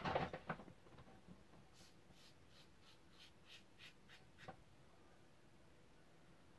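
Double-edge safety razor scraping through lathered stubble in a run of about eight short, faint strokes, roughly three a second, stopping about four and a half seconds in with a small knock.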